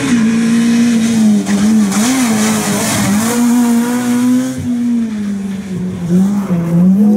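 Ford Fiesta rally car's engine running hard at high revs as the car passes, the note dipping and rising again several times as it brakes and accelerates through a tight bend.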